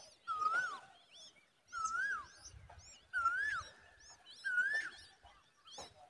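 Common babbler nestlings and adult calling at the nest. A clear whistled note that rises then falls is repeated four times, about every second and a half, with thin high chirps in between.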